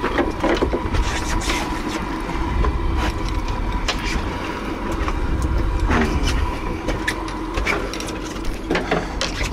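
Twin V8 outboard engines idling with a steady low rumble, with scattered clicks and knocks from fishing gear on deck.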